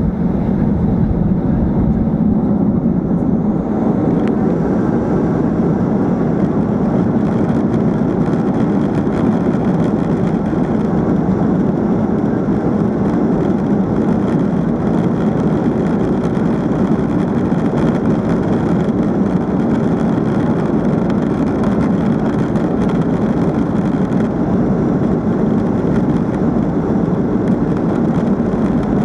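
Steady cabin noise inside a Boeing 737-800: the jet engines and airflow make an even rumble and hiss. A fainter high hiss joins about three seconds in.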